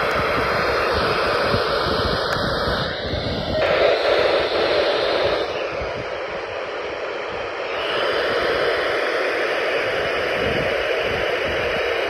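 Radio static: a steady loud hiss from the weather radio receiver with no broadcast coming through, a sign that the weather radio transmitter has gone off the air after lightning strikes. The hiss shifts in tone about three and a half seconds in and again about eight seconds in.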